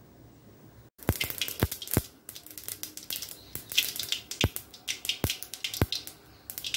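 Mustard seeds popping and spluttering in hot oil in a stainless steel kadai: a rapid, irregular run of sharp pops and ticks as the seeds burst and spatter against the metal. The popping starts about a second in.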